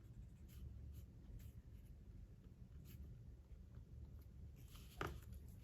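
Faint scratches of a pen drawing on sketchbook paper: a few short strokes, with a louder one about five seconds in.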